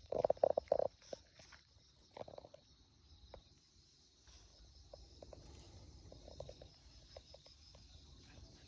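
A puppy chewing and tearing at corn seedlings: irregular crunching clicks, densest and loudest in the first second, then sparser. Steady insect chirring continues underneath.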